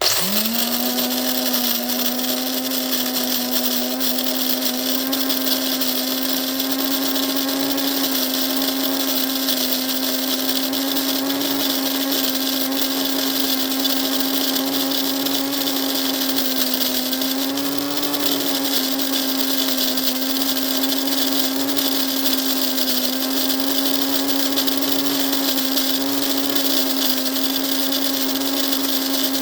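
Electric coffee grinder grinding beans: the motor spins up at once and runs at a steady pitch, with a brief wobble in pitch about eighteen seconds in.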